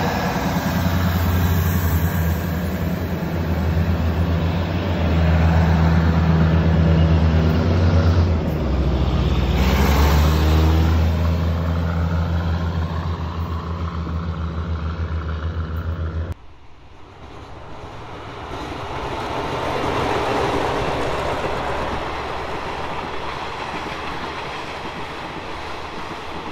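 Diesel train engine droning steadily as railcars move through the station, its note shifting about a third of the way in. After an abrupt cut, a long passenger train runs past with a whoosh of wheels on the track that swells and fades.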